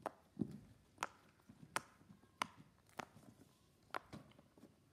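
Plastic fidget toys being clicked and handled, giving about six sharp, separate clicks at an uneven pace of roughly one a second.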